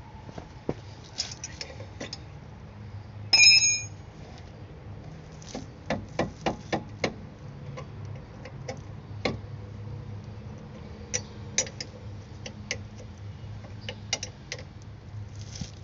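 Hand tools working on rear brake caliper bolts: scattered metallic clicks and clinks, with one loud ringing clang of metal on metal about three seconds in and a quick run of clicks around six to seven seconds.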